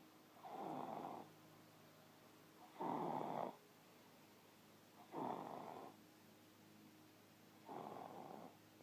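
A sleeping toddler snoring: four rough snores, about two and a half seconds apart.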